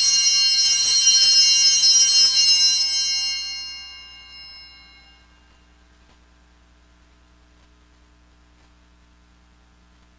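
Altar bells rung at the elevation of the chalice, marking the consecration: a bright jangling ring that fades out over about five seconds.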